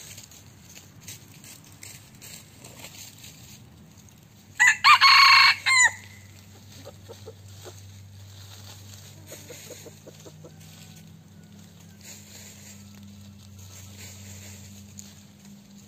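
Red junglefowl rooster crowing once, a short clipped crow about four and a half seconds in, followed by a few soft low clucks.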